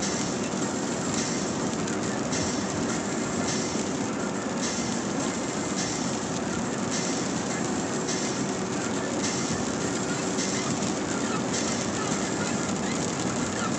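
Steady tyre and road noise heard inside a car driving on a wet road. Over it, the windshield wipers swish at an even pace, about once a second.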